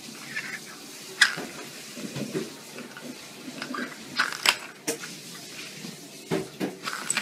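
Small plastic lids clicking and clacking against a wooden floor: a sharp click about a second in, a cluster of clicks around four to five seconds in, and two more near the end.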